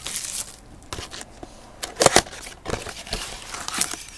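Packaging of a retail box of trading cards being handled and opened: irregular crinkling and crackling, with a sharper tearing sound about two seconds in.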